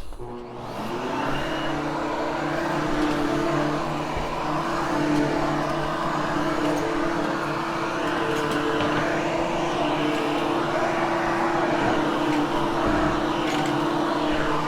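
Hoover HushTone upright vacuum cleaner switching on, its motor whine rising in pitch over the first second or so, then running steadily as it vacuums carpet.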